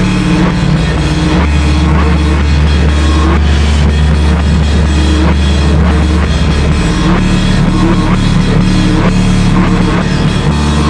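Harsh noise industrial music: a dense, very loud wall of distorted noise over a heavy low drone, pulsed by regular hits about twice a second. The low drone drops to a deeper note about a second and a half in and shifts back near seven seconds.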